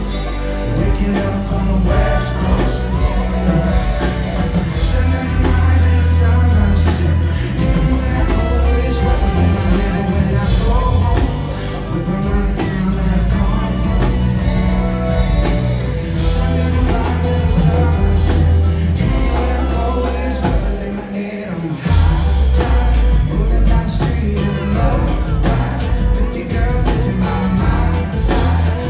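Live reggae band playing with sung vocals over a heavy bass line. About two-thirds of the way through, the bass drops out for a moment, then the full band comes back in.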